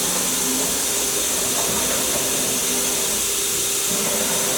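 Hurco VM-1 CNC vertical machining center running with a steady hiss and hum while its X axis is jogged. A lower drive tone comes and goes as the table moves.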